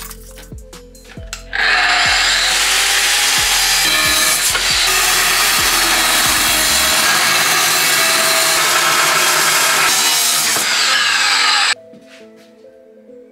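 Metabo angle grinder with a cut-off disc cutting through steel bar: a loud, steady grinding noise that starts suddenly about a second and a half in and cuts off suddenly near the end. Background music plays underneath.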